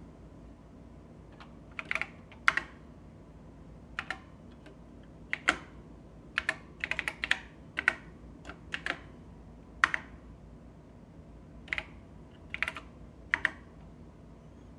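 Keystrokes on the Apple //e keyboard: sharp separate clicks in short irregular groups with pauses between, as a login name, password and command are typed into a Raspberry Pi shell over the serial terminal.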